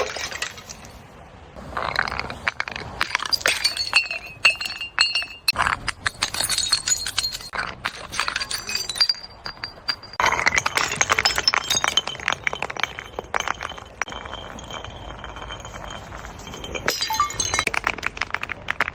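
Glass bottles breaking and being crushed: dense crunching and clinking of glass shards in several bursts, with brief ringing tones from the glass.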